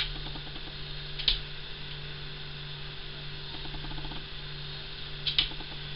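Steady low electrical hum, with two brief rustles of fabric as a wet dog cooling coat is handled and laid over a small dog.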